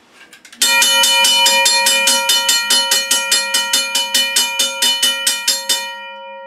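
Safetran mechanical railroad crossing bell ringing rapidly, about six strikes a second. It starts about half a second in, stops near six seconds, and its tone rings on as it fades.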